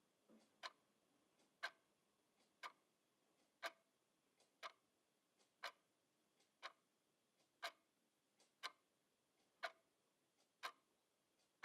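Steady ticking: a sharp click about once a second, each with a fainter click just before it.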